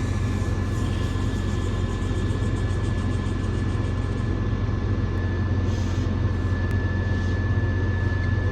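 Truck hauling a trailer at road speed: a steady low engine and road rumble with a faint, constant high whine.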